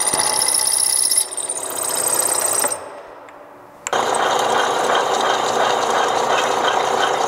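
Hole saw in a drill press cutting into a steel tube: a steady high whine of the spinning saw biting the metal. About three seconds in it drops away to a quiet lull for about a second, then the cut resumes with a rougher, denser grinding sound.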